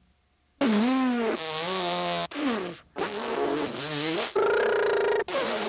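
A run of comic fart sound effects, about five in a row, each a buzzy raspberry that slides up and down in pitch, one of them with a fast flutter.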